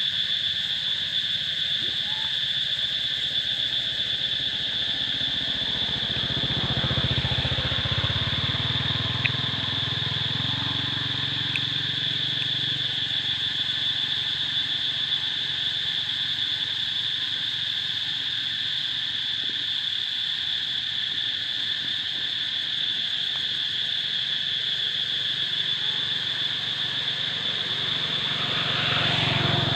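Steady, high-pitched insect chorus, with a low rumble swelling briefly about seven seconds in and again near the end.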